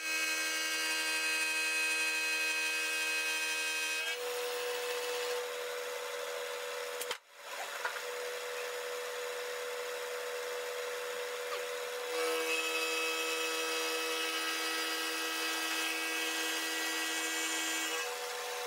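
Vertical milling machine running with its cutter taking a light half-millimetre cut along the edge of a metal plate: a steady whine of several tones. One lower tone drops out about five seconds in and comes back about twelve seconds in, with a brief break in the sound a little past seven seconds.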